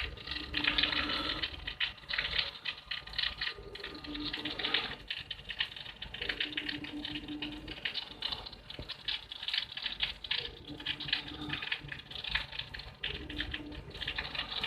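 Rain pattering: a dense, irregular crackle of many small drops.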